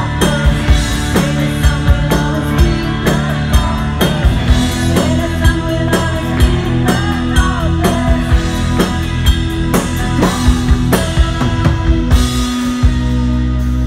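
Rock band playing live: a drum kit keeping a steady beat under electric guitars.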